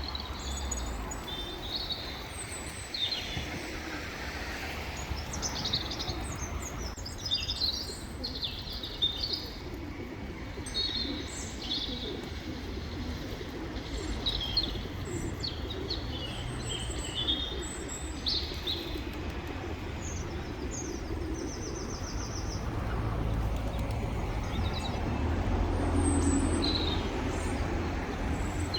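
Small birds chirping and twittering in quick, repeated high calls over a steady low outdoor rumble.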